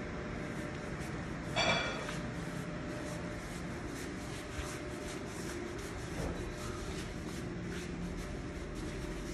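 Miniature Schnauzer puppy's claws clicking on a hardwood floor as it trots about, several light taps a second. One short, high squeak about one and a half seconds in is the loudest sound, over a faint low hum.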